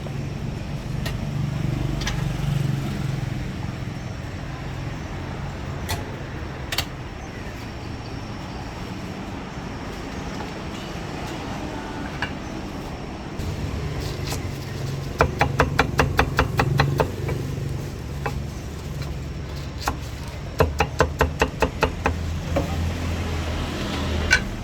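Steady street traffic hum. Over it come two runs of rapid, evenly spaced sharp knocks, about five a second, each lasting roughly a second and a half: one past the middle, one about two-thirds through.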